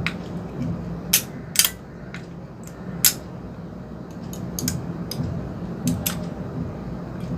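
Sharp plastic clicks and light clatter of a TV remote and its batteries being handled as the batteries are fitted into the battery compartment. The loudest clicks come about a second in, again half a second later, at three seconds, and as a pair near six seconds.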